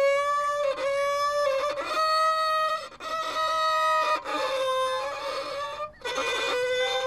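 A violin played by a young beginner: a run of long, slightly wavering, squawky-toned notes, each held about a second with short breaks between bow strokes, introduced as a rather mediocre piece of music.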